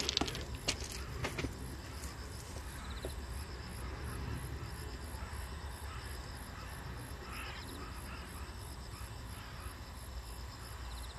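Insects chirping steadily in a fast, evenly repeating high pulse, with short trills now and then and a steady low rumble underneath. A few sharp clicks come in the first second and a half.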